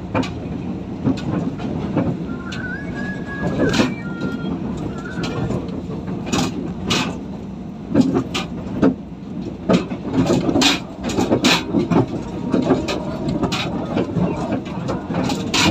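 PNR DMU 8103 diesel multiple unit under way, heard from on board: a steady low running rumble with irregular clicks and knocks from the wheels on the track. A brief high-pitched tone sounds about three seconds in.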